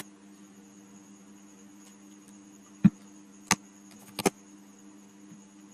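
Four short, sharp clicks of computer keyboard and mouse input, spaced out, the last two close together. Under them runs a steady low hum with a faint high whine.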